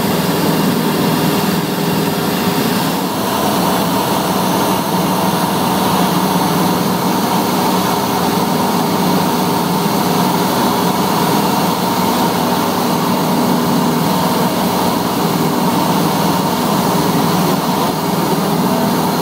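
Airliner cabin noise in flight: steady engine and airflow noise, even and unbroken, with a few faint steady tones running through it.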